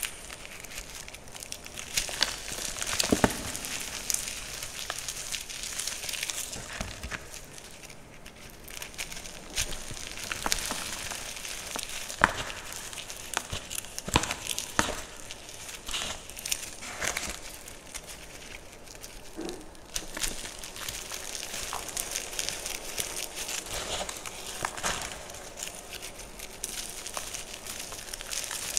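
Blocks of dyed gym chalk being pressed and crumbled by hand: a run of dry crunching and crackling as the chalk gives way, with irregular sharper cracks as chunks break.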